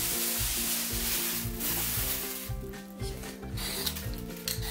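Thin clear plastic bag rustling and crinkling as it is crumpled in the hands: a dense crackle for the first couple of seconds, then a few separate short crinkles. Soft background music plays underneath.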